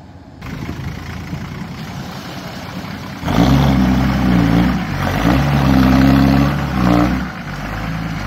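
Lifted Toyota Land Cruiser pickup's engine revving hard as it drives through deep mud. About three seconds in the engine comes in loud, and the revs rise and fall several times.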